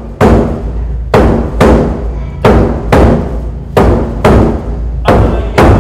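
Large barrel-bodied taiko drum with a tacked leather head, struck hard with wooden bachi sticks in a steady festival ohayashi beat, about ten strokes at roughly two a second, each ringing on briefly.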